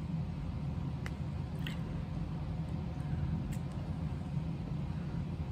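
Steady low background hum, with a few faint light clicks, three of them spread over the first few seconds, from a diamond painting pen setting resin drills onto the canvas.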